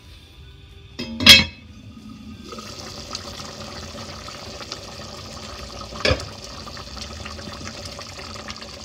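A lid clanks down onto the pot about a second in, then the tamarind gravy simmers with a steady bubbling hiss. There is a smaller click near the six-second mark.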